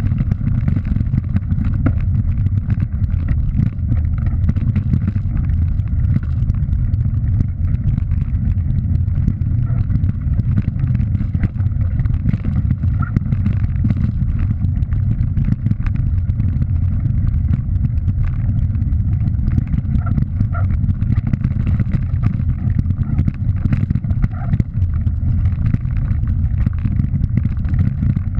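Steady low wind rumble buffeting an action camera's microphone while riding along a gravel track, with light scattered ticks and rattles from the rough surface.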